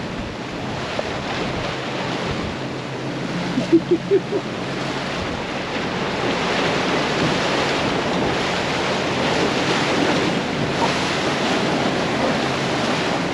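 Wind buffeting the microphone and water rushing past a boat under tow, over a low steady engine hum. A brief voice sound cuts in about four seconds in.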